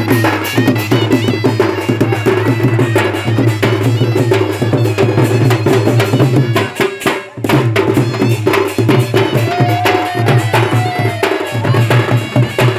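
Live folk band playing loud: double-headed barrel drums beaten in a fast, dense rhythm under a wind instrument. The sound dips briefly about seven seconds in.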